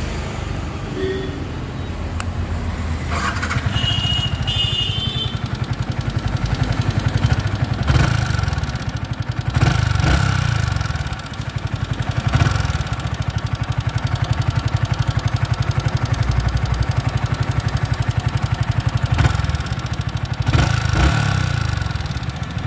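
Yamaha R15 V3's single-cylinder engine running at idle with a light rapid 'tik tik' ticking from the valve gear, the throttle blipped briefly a few times. The tick comes from excess valve clearance (play) at the rockers.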